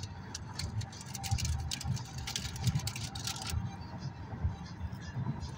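Inside a car cruising on a freeway: a steady low road and tyre rumble, with a car radio broadcast playing over it.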